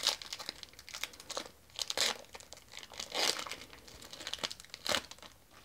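Foil Pokémon booster pack being torn open and crinkled by hand, in a run of irregular crackling bursts.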